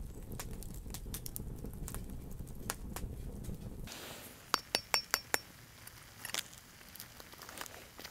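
A metal fork clinking and scraping against the hardened, charred clay shell of a clay-baked fish, a quick cluster of sharp clinks about halfway through. Before that, a low rumble with scattered faint clicks.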